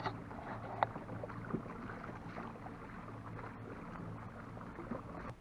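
A 44-lb-thrust electric trolling motor runs steadily, pushing the kayak along, with a low hum over the wash of water along the hull and a couple of light knocks.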